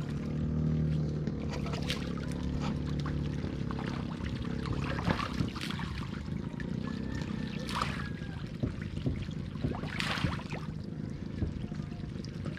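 Irregular splashing and trickling water as rabbitfish (samaral) in a fish pen churn the surface at feeding time, over a steady low hum.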